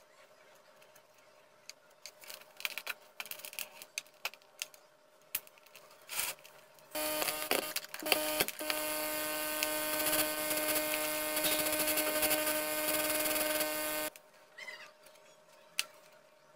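Light clicks and rustles of wires being handled, then a loud steady electrical buzz with hiss, several tones at once. It lasts about seven seconds, breaks off briefly near its start and cuts off suddenly.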